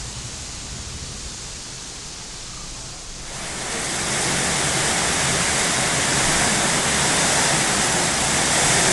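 Heavy rain falling steadily on trees and garden, an even hiss that becomes markedly louder about three seconds in.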